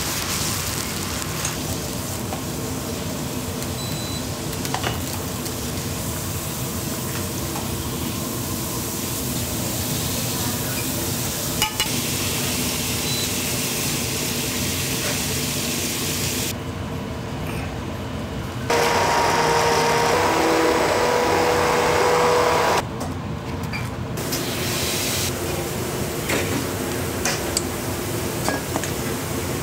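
Restaurant kitchen cooking sounds: a steady sizzling hiss with a few sharp clinks. About two-thirds of the way through, a louder humming machine sound with a steady tone comes in for about four seconds, then cuts off.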